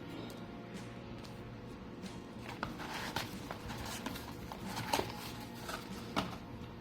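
A product box being handled and turned over by hand: scattered light taps and rustles, most of them in the second half, over a steady low room hum.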